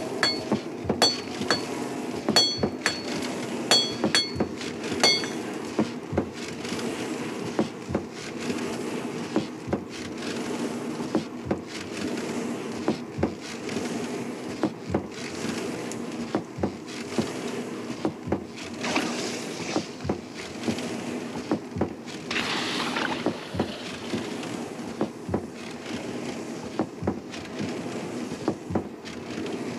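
Hand hammer striking red-hot iron on an anvil: sharp ringing blows in the first five seconds, then a steady rhythm of duller strikes over a constant low hum.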